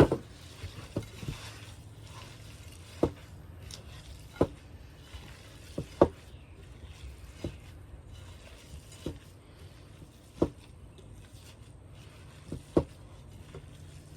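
Hands mixing a wet ground-meat meatloaf mixture in a bowl, giving irregular squelching slaps every second or two. A steady low hum runs underneath.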